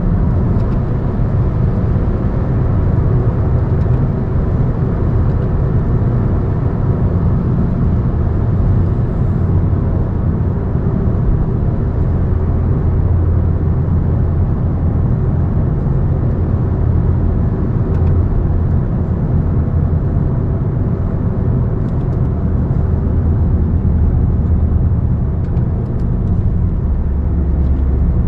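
Steady, loud low rumble of a moving road vehicle, unbroken throughout.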